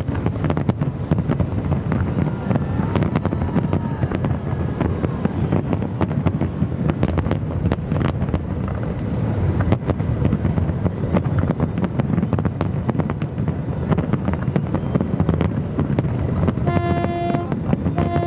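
Strong wind buffeting the microphone: a steady low rumble with scattered crackles. Near the end a short, clear pitched tone sounds twice.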